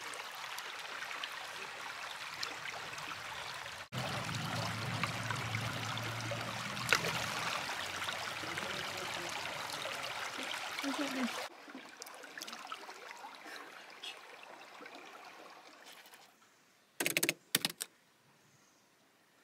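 Shallow stream running and trickling over rocks, heard in a few cut-together stretches that fade to a quieter flow. Near the end it drops to near silence, broken by two sharp knocks in quick succession.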